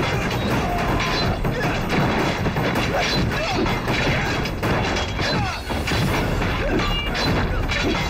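Dense action-drama battle soundtrack: repeated crashes, booms and thuds mixed with dramatic music and voices.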